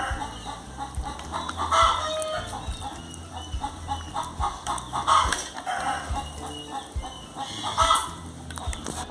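Chickens clucking in the background, with a louder call every few seconds, over the clicks and slosh of a spoon stirring pickled pig's feet and vegetables in a glass bowl.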